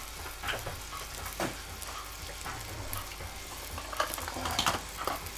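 Diced bacon sizzling in a stainless steel stock pot over high heat, with scattered crackles.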